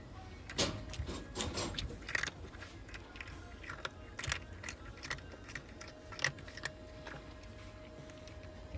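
Irregular rustling and light clicks, thickest in the first two seconds and then scattered one at a time. A faint steady tone comes in about six seconds in.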